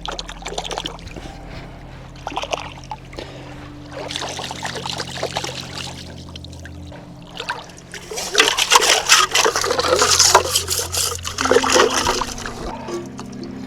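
Water pouring and trickling in uneven bursts, loudest from about eight to twelve seconds in, over steady low ambient music.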